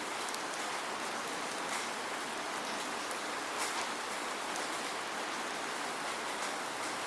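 Steady rain falling, an even hiss with scattered sharper drops and no thunder.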